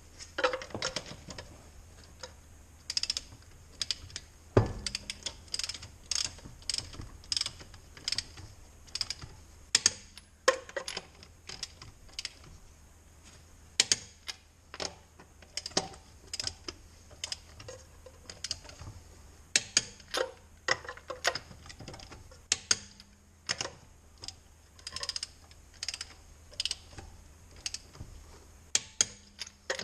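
Irregular sharp metal clicks and clinks of hand tools, singly and in quick clusters, as lug nuts are run onto the wheel studs.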